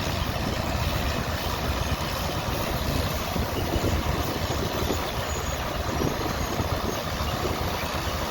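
Steady engine rumble from vintage harvest machinery working a wheat field, a crawler tractor pulling a combine among them, mixed with wind buffeting the microphone.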